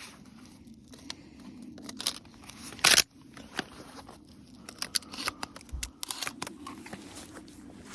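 Irregular crunching, crackling and snapping of someone moving about and handling things close to the microphone, with one loud scrape about three seconds in.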